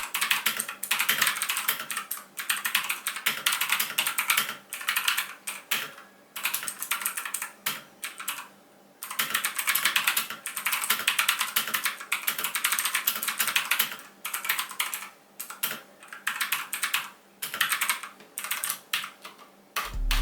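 Typing on a Redragon Kumara K552 mechanical keyboard with Otemu Blue switches, clicky and tactile Cherry MX Blue clones: rapid clicky keystrokes in runs broken by several short pauses.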